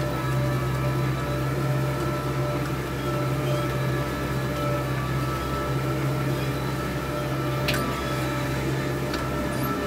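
Tractor engine running steadily under load while pulling a disc harrow across the field, with one short click about eight seconds in.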